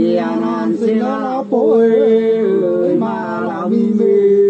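Men singing sli, the Nùng two-part folk song, unaccompanied. Two voices hold long, slow notes together, with wavering ornaments between the held notes.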